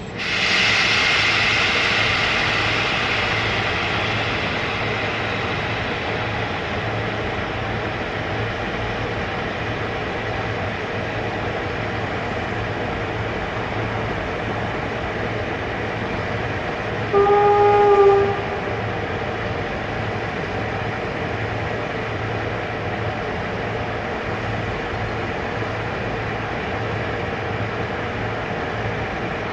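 CFR electric locomotive and train running with a steady low hum and rail noise, louder at the start and easing over the first few seconds. The locomotive's horn gives one blast of about a second some seventeen seconds in.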